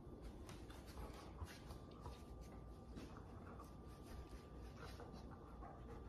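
Faint sounds of a dog mouthing and nosing a toy on a rug: soft rustling with small, irregular clicks.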